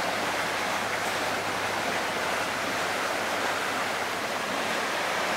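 Muddy floodwater rushing in a broad, foaming sheet across pavement: a steady, even rush of water.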